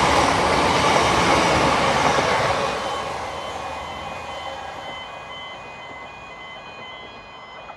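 Class 170 Turbostar diesel multiple unit running past, loud at first and fading away over several seconds. From about three seconds in, a track workers' warning beeper sounds repeatedly in the background, signalling that workers are near the track.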